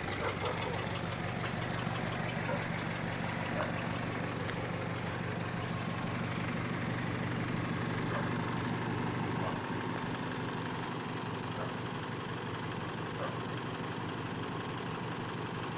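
A vehicle engine idling steadily with a low hum, which eases slightly about nine and a half seconds in. No siren is sounding.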